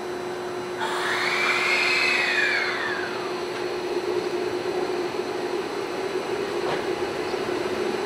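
Hankyu 1000 series electric train starting to pull out: about a second in, a sudden hiss comes in with a whine that rises and then falls, then a growing rumble as the train moves off, over a steady hum.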